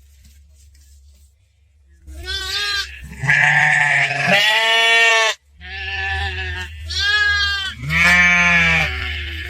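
Sheep bleating, about five calls in quick succession starting about two seconds in, the longest and loudest near the middle, over a steady low hum.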